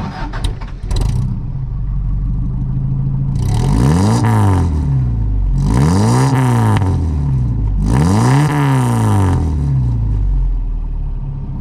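An engine idling and revved three times, each rev climbing and falling back to idle over about a second and a half.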